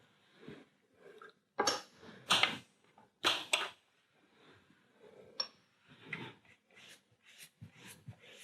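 Wide synthetic-bristle brush working gouache on watercolour paper: a few short scratchy strokes, four louder ones in the first few seconds, then fainter rubbing, with a light clink about five seconds in.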